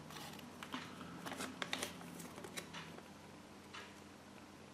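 A paper insert leaflet from a Kinder Surprise egg being handled and unfolded by hand: faint paper rustles and light clicks, busier in the first three seconds and sparser after.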